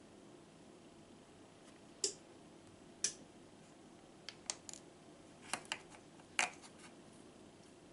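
Miniature cooking utensils, a thin wooden stirring stick and a tiny plastic measuring spoon, clicking and tapping against a small plastic mixing bowl. There are about eight sharp, irregular taps.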